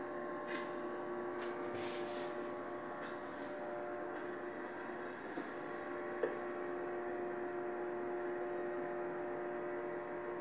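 Steady electrical hum made of several constant tones over faint hiss, with a few faint clicks in the first two seconds and one sharp tick about six seconds in.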